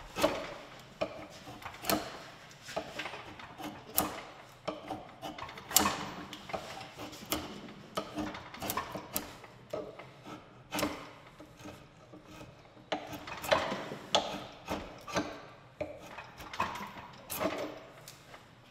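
Long hand file pushed across a hickory axe-handle blank held in a vise: repeated scraping strokes of metal teeth on wood, about one to two a second, as the handle is shaped.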